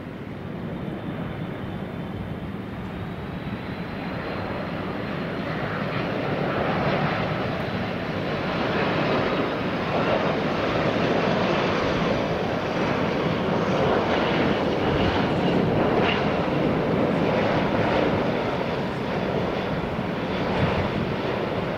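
Airbus A330 airliner's jet engines on low final approach: a steady rushing engine noise that grows louder over the first several seconds as the jet comes close, then holds.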